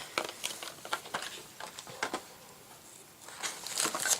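Cosmetics and their packaging being handled: a scatter of light clicks and taps, with a longer rustle of crinkling wrapping near the end.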